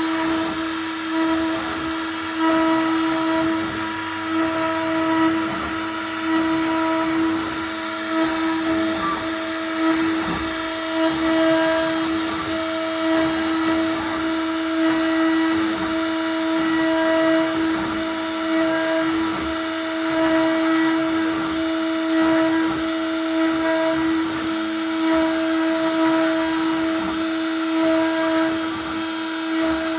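CNC router spindle running steadily with a constant high whine while the bit carves wood, the cutting noise swelling and easing slightly as it moves.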